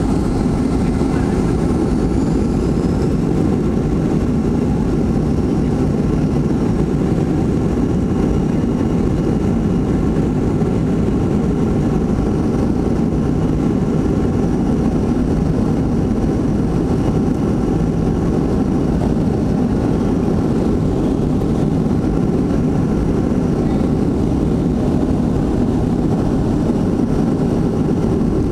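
Boeing 737-500's CFM56-3 turbofan engines at takeoff thrust, heard inside the cabin over the wing during the takeoff roll. A loud, steady rumble with fan whines on top; a high whine rises in pitch near the start.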